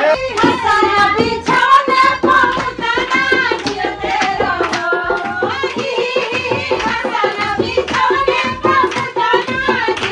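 Group of women singing a traditional Indian folk song together, kept in time by steady hand clapping and the beats of a dholak drum.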